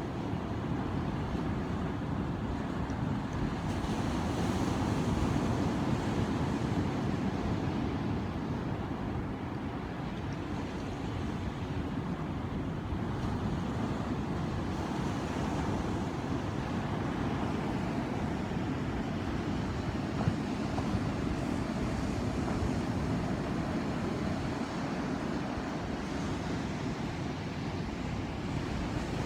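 Ocean surf: waves breaking and washing in as a steady rushing noise that swells and eases, with some wind buffeting the microphone. A single brief click about twenty seconds in.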